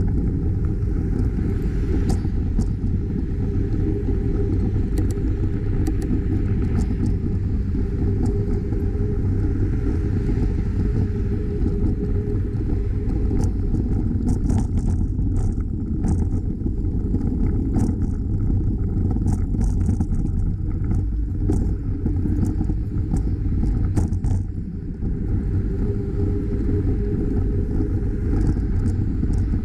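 Steady low rumble of wind on the microphone and tyre noise from a bicycle riding along, with scattered small clicks and rattles.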